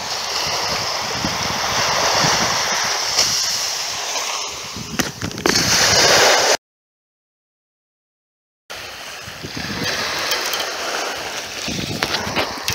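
Ocean surf washing on the beach, a steady rushing noise with a few faint clicks, which cuts out completely for about two seconds past the middle, then resumes.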